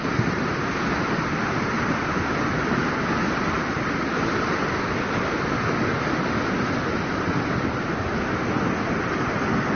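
Flash-flood torrent of muddy water rushing down a steep rocky mountainside channel: a steady, loud rushing noise.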